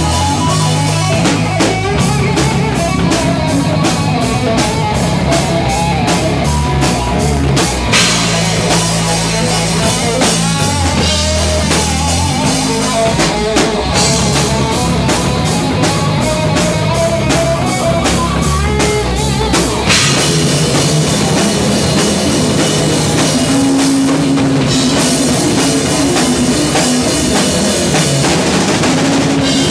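Rock band playing live: drum kit, bass and electric guitar, loud and steady, with the song moving into a new section about twenty seconds in.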